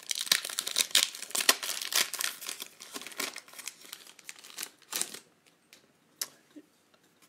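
Trading-card pack being torn open and its wrapper crinkled, a busy run of crackles that stops about five seconds in, followed by a few faint clicks as the cards are drawn out.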